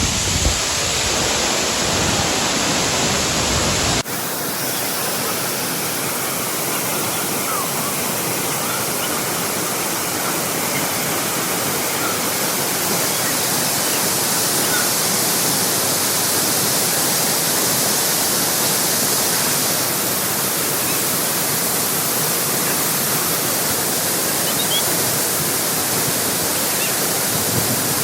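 Waterfall rushing: a steady, unbroken noise of falling water, which changes abruptly about four seconds in to a brighter, fuller rush.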